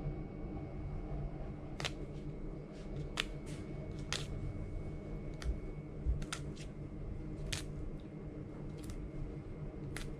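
Fresh basil leaves torn apart by hand, giving small sharp snaps at irregular intervals, about ten in all, over a low steady room hum.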